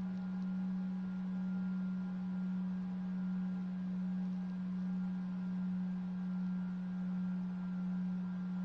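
Model aircraft's motor and propeller running at a steady speed: a constant low hum with faint higher tones, swelling and fading slightly about once a second.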